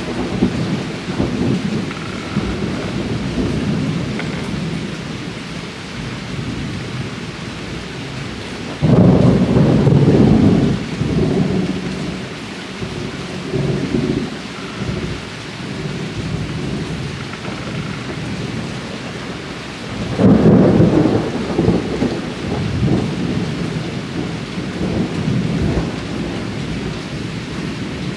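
Steady rain falling, with thunder rumbling low throughout and two louder rolls of thunder, about nine and about twenty seconds in.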